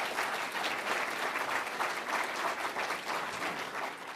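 Audience applauding at the end of a talk: dense, steady clapping that tapers off near the end.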